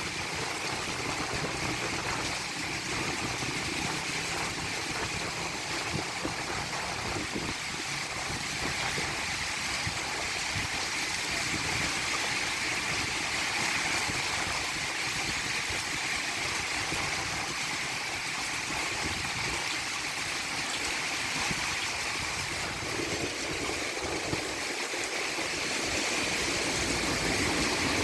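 Heavy rain pouring steadily onto a roof, with water running off the eaves. A low rumble builds in the last few seconds.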